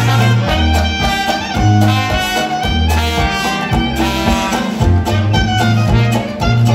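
Traditional New Orleans-style jazz band playing live: a sousaphone bass line in steady alternating notes under clarinet, cornet and trombone, with banjo, guitar and washboard keeping the rhythm.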